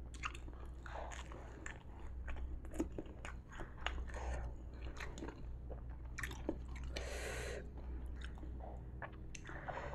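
A person chewing and biting crispy flour-battered fried tempe gembus, a string of small crunches and clicks, with one longer noisy burst about seven seconds in.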